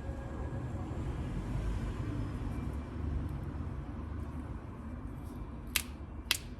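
Two sharp clicks of a hammer striking flint, about half a second apart near the end, over a low steady rumble.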